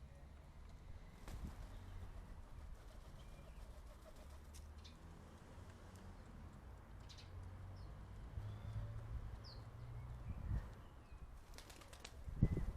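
Quiet garden ambience: a low steady hum with faint small birds chirping in the distance, and a brief flurry of wood pigeon wing flaps near the end.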